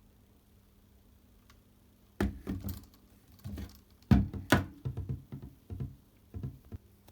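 A run of clicks and knocks of hard plastic being handled, starting about two seconds in and stopping shortly before the end, the loudest around the middle.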